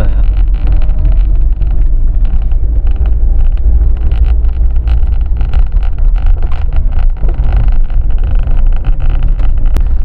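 A car on the move, heard from inside: a loud, steady low rumble of engine and tyres, with wind buffeting the microphone and frequent small knocks and rattles from the road.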